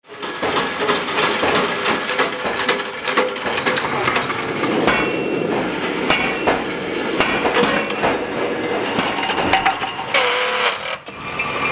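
Metalworking shop noise: many quick clinks and knocks of steel being struck and handled, with a short burst of machine cutting noise near the end.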